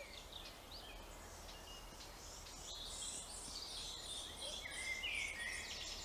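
Songbirds singing in a woodland, with quick chirps and trills that get busier about three seconds in.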